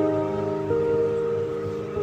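Background music of soft, sustained held chords, with a new note coming in under a second in.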